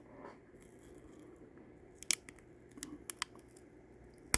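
Small, sharp clicks and crinkles as an X-Acto knife picks at and peels security tape off a laptop's display connector, a few scattered ticks with the loudest one near the end.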